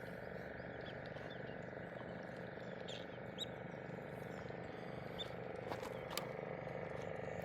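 Outdoor ambience: a steady low hum with a few short high bird chirps about three to five seconds in, and a couple of light clicks near the end.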